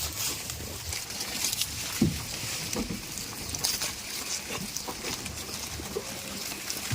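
Goats moving about at close range: steady rustling with scattered short low knocks or grunts, and one sharp knock about two seconds in.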